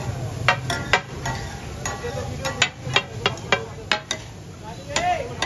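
Chicken pieces cooking on a flat tawa griddle: a metal spatula clanks and scrapes against the griddle in an irregular run of sharp strikes, about two a second, over a steady sizzle.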